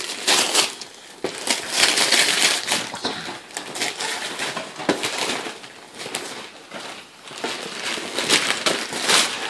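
Gift wrapping paper being torn open and crumpled by hand, in irregular rustling surges as a present is unwrapped.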